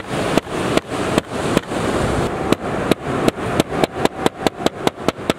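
A small red-handled meat-tenderiser mallet knocking sharply on a piece of chokka squid bait laid on a cooler lid. It strikes about two to three times a second, pauses briefly near the middle, then quickens to about five strikes a second.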